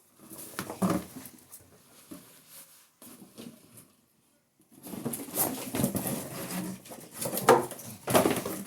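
Fabric end curtain for a Gama Goat cover being unfolded and handled: irregular rustling and flapping, with a pause about three seconds in and louder handling after it.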